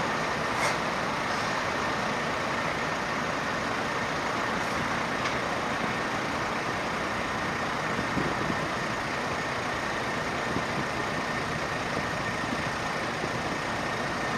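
Steady traffic noise at a bus terminal: large buses idling and pulling slowly away, with a few light clicks.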